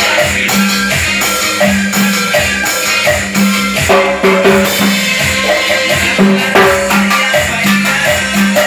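Cumbia recording playing, with a steady beat and a shaker, while timbales and a cowbell are struck with sticks along with it.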